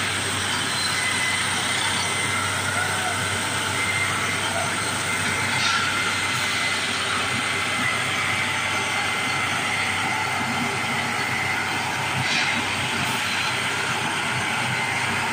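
A yellow railway track-tamping machine running steadily close by, giving a continuous mechanical noise. Two sharp metallic clicks stand out, one a little under halfway through and one near the end.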